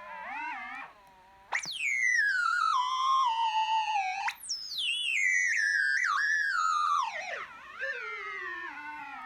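MacBook Pro giving off weird electronic tones: a wavering, theremin-like whine that leaps up sharply twice and then slides slowly down in pitch each time.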